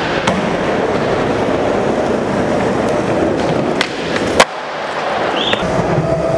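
Skateboard wheels rolling on the skatepark surface, then the pop of an ollie just before four seconds in and a loud slap of the board landing about half a second later, after which the wheels roll on.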